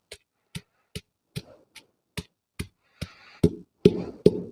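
Boiled chicken breast being pounded with a masher in a large vessel: a steady run of about ten dull knocks, roughly two and a half a second, with a soft squelching scrape between the later strokes.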